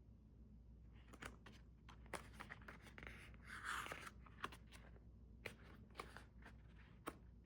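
Faint handling of the album's paper contents: scattered light clicks and soft rustles of pages and cards, with a longer rustle or slide of paper about three and a half seconds in.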